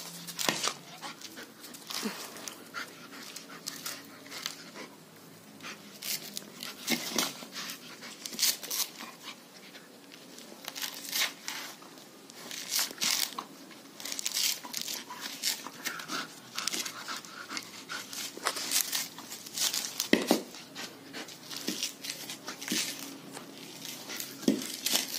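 German Shepherd gnawing and tearing at the fibrous husk of a coconut, giving short, irregular crunching and ripping sounds, with panting between bites.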